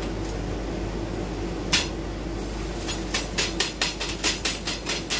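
A quick run of sharp knocks, roughly three to four a second, after a single click, as a cut sheet and a stone block are handled on a CO2 laser cutter's slatted metal bed. A steady machine hum runs underneath.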